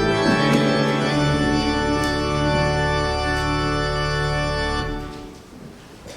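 Church organ playing the closing chords of a hymn. The final chord is held and released about five seconds in, leaving the reverberation of the room to die away.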